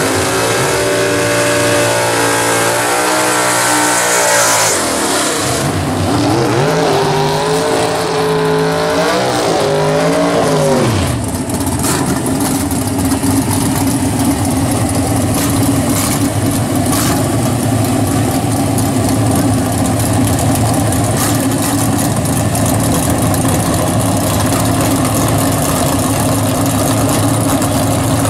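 Pro Stick drag car V8 engine revving at the line: held at stepped revs, then blipped up and down several times, then from about eleven seconds running loud and rough at a steady high idle, with a few sharp pops.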